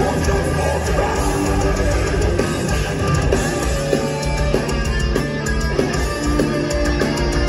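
A melodic death metal band playing live: electric guitars carry a melodic line over drums and bass.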